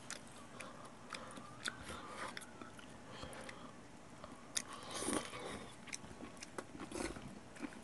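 A person chewing and biting hot pot food such as noodles, with small clicks from chopsticks and a spoon and a louder soft noise about five seconds in.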